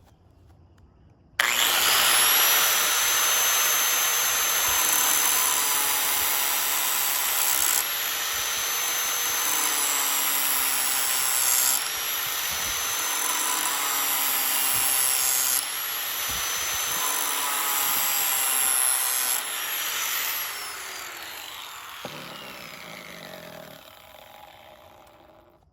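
Angle grinder switched on about a second in, its disc grinding the very hard stainless steel spine of a Mora Companion knife to square off the rounded corners, with a steady high whine over the grinding noise that shifts a few times with each new pass. Near the end it is switched off and winds down with a falling whine.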